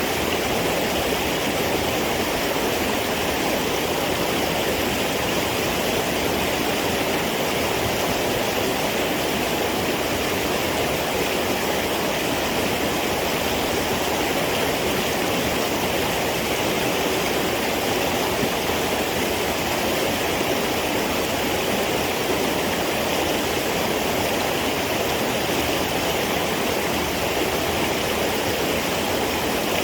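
Steady rush of flowing water, like a stream running over rocks, unbroken and even.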